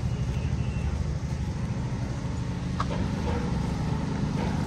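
A vehicle engine running, a steady low rumble, with a brief click about three seconds in.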